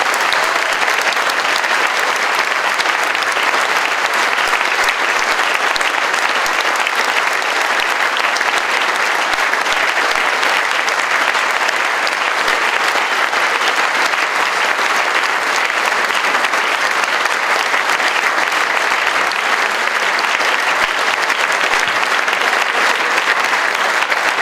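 A large audience applauding, a steady, dense clapping that does not let up.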